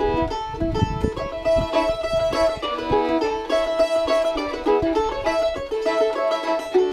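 Fiddle and mandolin playing a tune together: the fiddle bows a sustained melody over the mandolin's picked notes. A few low thumps sound in the first second or two.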